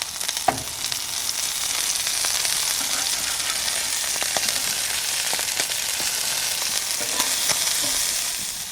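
Floured garfish fillet frying skin side down in oil on a barbecue hot plate: a steady sizzle with scattered small crackles and pops, swelling about a second in.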